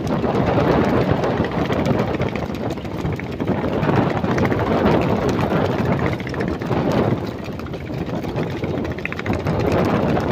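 Strong wind blowing across the microphone, a dense noise that swells and eases in gusts.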